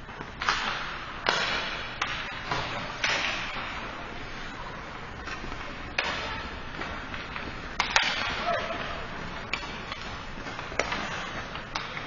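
Ice hockey play in an echoing rink: skate blades scraping on the ice under a string of sharp cracks and knocks from sticks and puck striking.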